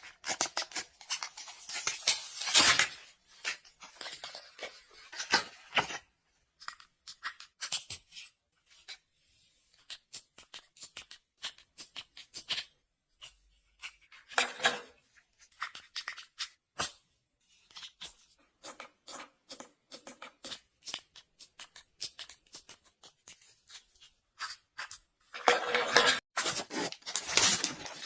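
Packaging being opened and handled: scattered clicks, scratches and short tearing or rustling noises, with louder, denser stretches near the start and near the end.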